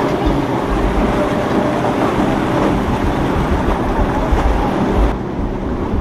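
Boat engines running through the rough inlet, mixed with crashing surf and wind gusting on the microphone. About five seconds in the sound changes abruptly, losing its hiss.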